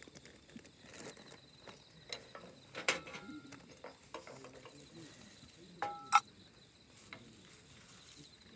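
Knife knocking and scraping on a wooden cutting board while dicing onion, with scattered light taps. About six seconds in, a stainless steel bowl clinks sharply with a brief ring, the loudest sound. Under it, a faint steady high chirring of crickets.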